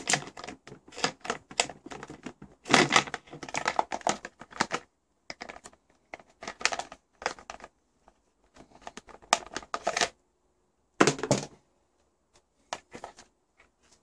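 Plastic housing of a drip coffee maker clicking and rattling as it is unclipped and lifted off its base. The clicks come in dense clusters at first, then in sparser groups with short pauses.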